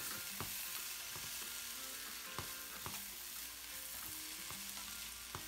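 Carrots, broccoli and onion sizzling steadily in hot oil in a non-stick wok as they are stir-fried, with a few knocks of the spatula against the pan.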